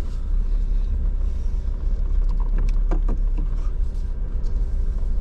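A Jeep's engine and drivetrain heard from inside the cab while it drives along a dirt trail: a steady low drone, with a few light knocks and rattles around the middle.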